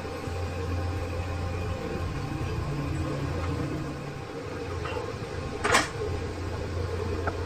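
Metal lathe running with a steady low hum, with one sharp metallic knock near the end.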